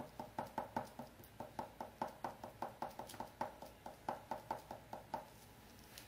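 Fingertip patting quickly on a wooden frame while working glue over it, about five light knocks a second, with a short break near the one-second mark, stopping a little after five seconds in.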